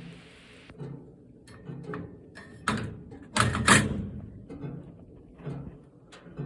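Strange low thumps from inside a switched-off gas fireplace, repeating about once a second, with a cluster of louder sharp knocks about three seconds in.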